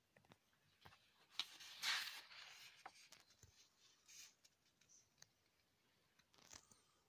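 Faint paper rustling and small handling clicks as a glossy photo-book page is turned, with one brief swish about two seconds in.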